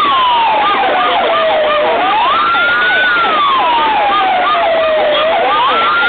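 Several fire sirens wailing together in an air-raid-style alert, loud. The strongest rises quickly and then falls slowly, about every three and a half seconds, over many shorter falling whoops from other sirens.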